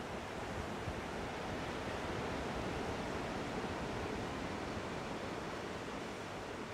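Steady rushing of ocean surf, swelling slightly in the middle and easing off again.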